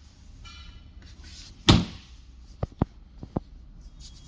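Porthole door of a front-load washing machine shut with a single sharp thud about two seconds in, followed by a few light clicks.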